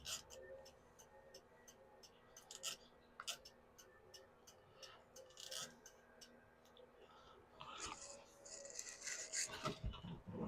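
Faint, scattered small clicks with brief rubbing and rustling from parts being handled, with a denser stretch of rubbing near the end.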